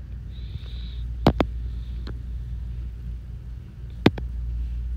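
A cooking utensil knocking against a frying pan a few times as minced pork and carrot are stirred, two quick knocks about a second in and one more near the end, over a steady low hum.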